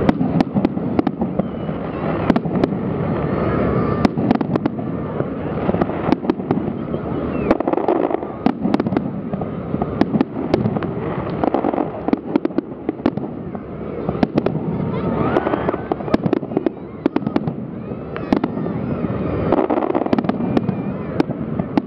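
Fireworks display: aerial shells bursting in many sharp bangs and crackles every second, with a continuous din of voices underneath.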